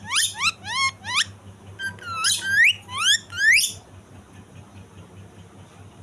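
Ringneck parakeet giving a rapid string of rising whistled notes, about three a second, in a ringtone-like pattern. It stops a little over halfway through, leaving only faint ticking.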